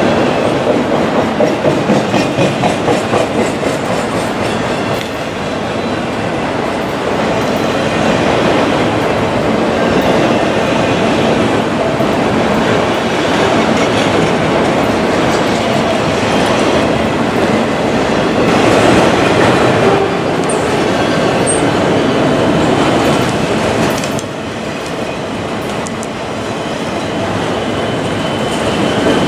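Freight train of enclosed autorack cars rolling past at speed: a steady rumble of steel wheels on rail with a rhythmic clickety-clack as the trucks cross the rail joints.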